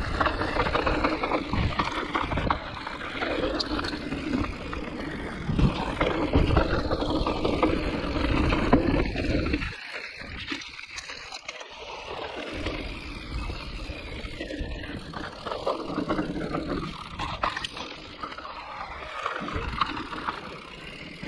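Riding noise from a mountain bike on a trail: wind buffeting the microphone and tyres rolling and rattling over rough ground. It drops to a quieter stretch about halfway through and picks up again near the end.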